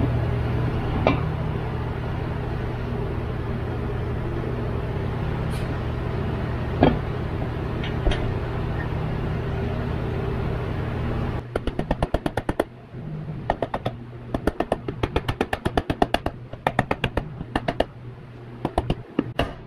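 A steady low hum with an occasional single click. About halfway through the hum cuts off, and a rapid, irregular run of light metallic clicks and clacks follows, from hands working the bare aluminium EJ25 block with its crank and rods fitted.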